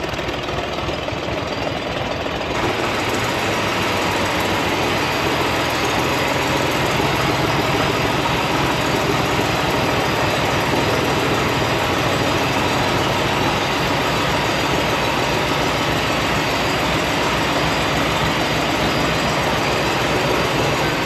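Valmet 500 tractor's three-cylinder diesel engine running steadily while the tractor is driven slowly into the hall. Its exhaust manifold leaks badly through a hole.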